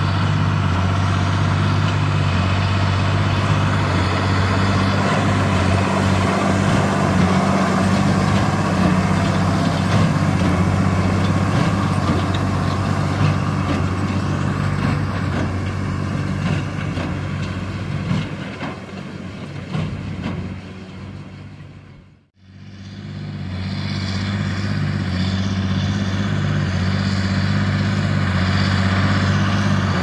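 John Deere 8410 tractor's 8.1-litre six-cylinder turbocharged diesel running steadily under load, pulling a New Holland BigBaler 9080 large square baler that is working through a hay windrow. The sound fades out briefly about two-thirds of the way through, then comes back.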